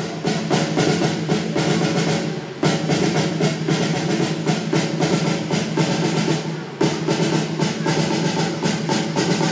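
Ceremonial march music led by a snare drum, with a fast, even beat over sustained pitched tones, breaking briefly twice between phrases. It is the march that accompanies a colour guard carrying out a banner.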